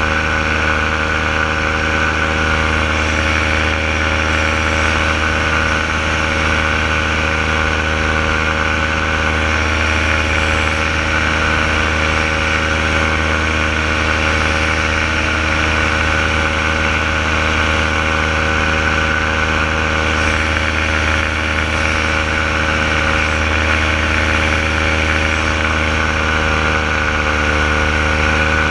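Renegade paramotor engine and propeller running steadily in powered paraglider flight, a constant loud drone. The pitch dips slightly near the end as the throttle eases.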